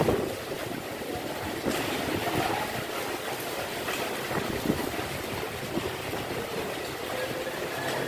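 Steady rain falling, heard as an even hiss, with a brief louder sound right at the start.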